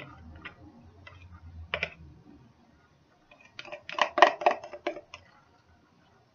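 Plastic pitcher and utensil clicking and knocking as thick, riced soap batter is worked out of the pitcher into a mould. There are a few light clicks over a faint low hum, then a quick cluster of sharp clattering clicks about four seconds in.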